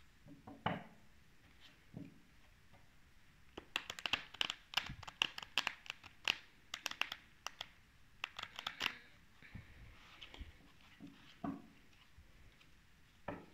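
A deck of oracle cards being shuffled by hand: a dense run of quick card flicks and rustles for several seconds in the middle, with a few softer flicks before and after.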